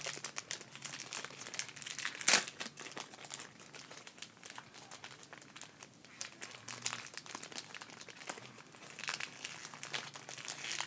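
Plastic packaging of a speedcube box being handled and opened: continual crinkling and rustling, with one sharp snap about two seconds in.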